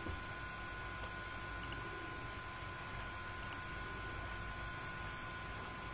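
Two faint computer mouse clicks, about two seconds apart, over a steady hiss with a constant thin whine.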